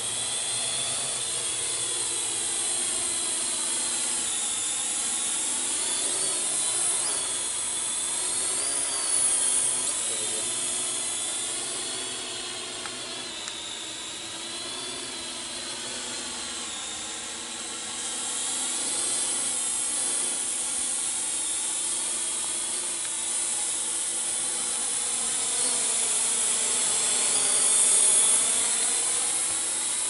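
Parrot AR.Drone 2.0 quadcopter in flight: its four electric motors and propellers whine steadily, the pitch rising and falling as the motor speeds change, with louder swells about nine seconds in and near the end.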